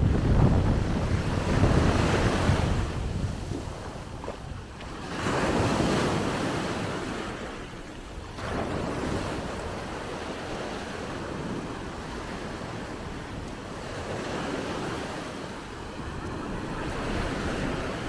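Small waves breaking and washing up a sand-and-pebble beach, swelling in surges every few seconds, with wind noise on the microphone.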